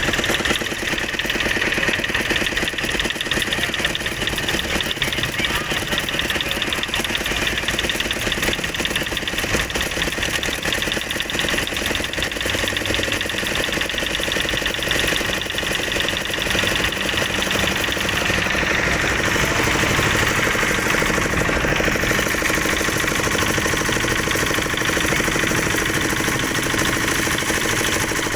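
Heavy construction machine's diesel engine running steadily with a rapid, even knock.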